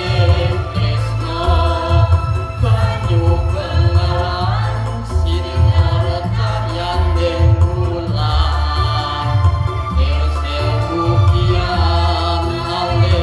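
Mixed choir of men and women singing together with electronic keyboard accompaniment, over a strong bass line.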